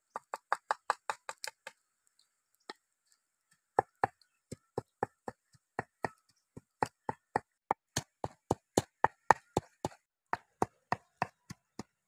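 Pestle pounding in a mortar: a quick run of about five knocks a second, a pause broken by a single knock, then steady pounding at about three or four strokes a second.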